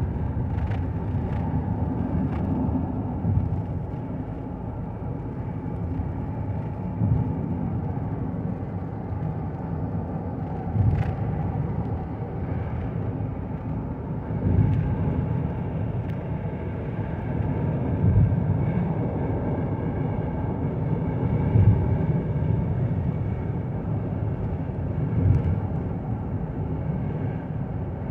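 Car cabin noise while driving on a highway: a steady low rumble of tyres and engine, with brief louder low surges every few seconds.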